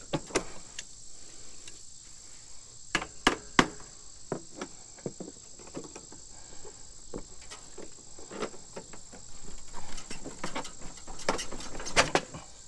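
Scattered clicks and knocks of a hard plastic mulching cover being worked loose from a riding mower's cutting deck, coming thicker near the end. A steady high-pitched whine runs underneath.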